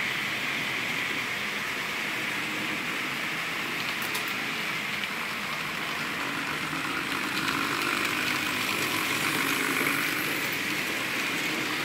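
Märklin model train, a diesel locomotive hauling hopper wagons, running on the track with a steady whirring of motor and wheels on rails. It grows louder about eight seconds in as the train passes close.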